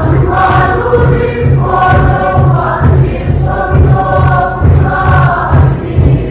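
Choir singing a hymn in long held notes over a steady low bass accompaniment.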